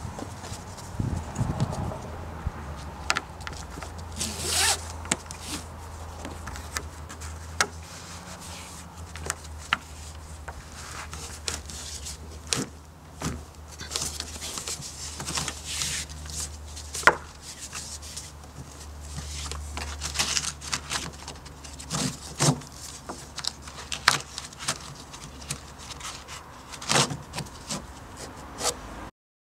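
Nylon strap webbing pulled through a buckle and wrapped around a roof-rack crossbar: repeated swishing and rubbing with scattered sharp clicks.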